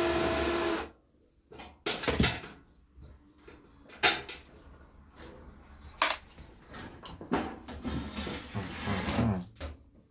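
Electric drill-driver running steadily as it backs a screw out of a convector heater's metal casing, stopping about a second in. Then come scattered clicks and knocks of the loosened screw and metal parts being handled.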